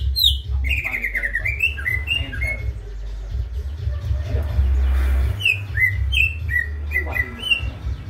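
Male greater green leafbird (cucak hijau) singing in two phrases of quick, sliding notes. The first runs over the first two and a half seconds; the second starts about five seconds in, with a quieter lull between them.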